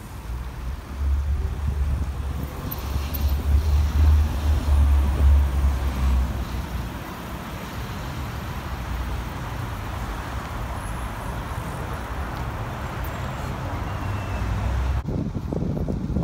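Wind rushing over the microphone of a camera riding on a moving bicycle, with road noise. A heavy low rumble is strongest for the first several seconds, then settles to a steadier rush, and the sound changes abruptly near the end.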